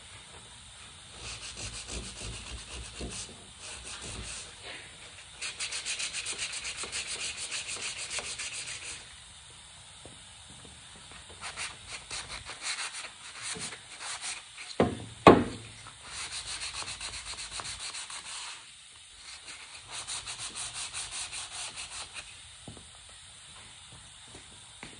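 Sanding a wooden fluted column: quick back-and-forth rubbing strokes in bursts of a few seconds with short pauses between. A pair of sharp knocks about fifteen seconds in is the loudest sound.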